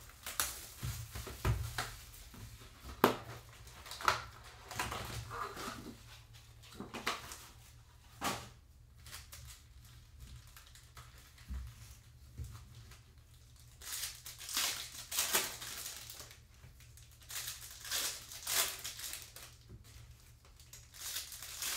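Foil trading-card packs crinkling and rustling as they are tipped out of their box and dealt into stacks on a table, with irregular soft slaps as packs are set down.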